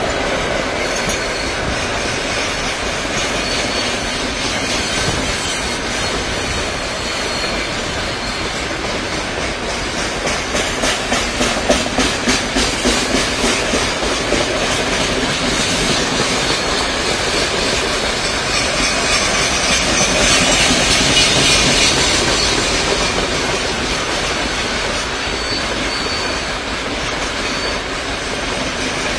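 A long freight train of open gondola wagons rolling past, behind the tail of a passenger train. Its wheels clatter over the rail joints in a quick, even rhythm about ten seconds in, and a louder high-pitched rush of wheel-on-rail noise swells around twenty seconds in.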